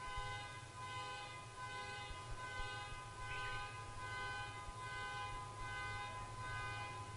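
Weighted tuning fork struck on the palm and left ringing: a sudden start, then a steady cluster of clear high tones that pulse slowly and hold on. A faint bird chirp comes in about three seconds in.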